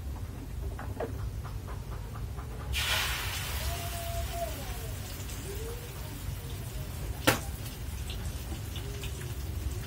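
Frying sizzle in a wok on a gas stove, starting abruptly about three seconds in as something goes into the hot oil and carrying on as a steady hiss. A single sharp knock comes about seven seconds in.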